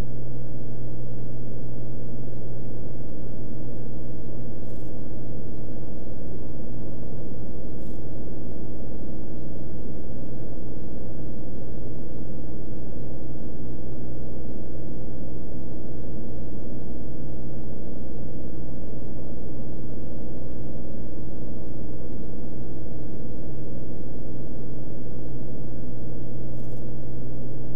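Beechcraft Bonanza F33's piston engine and propeller droning steadily in flight, a constant low hum with no change in pitch.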